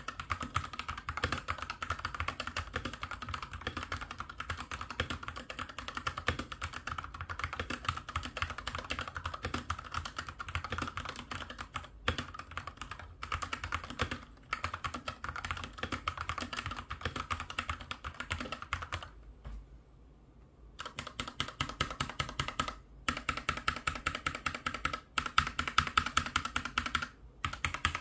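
Fast, continuous typing on a SteelSeries gaming keyboard, a dense stream of key clicks, broken by a pause of about a second and a half about two-thirds of the way through.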